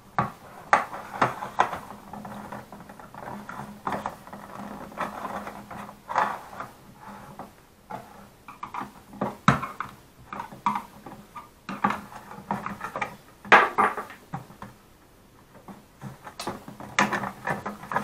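Plastic top cover of a mini washing machine being pried and worked loose by hand and with a screwdriver: irregular clicks, knocks and scrapes of the plastic latches and panel shifting, the loudest knock a little past the middle.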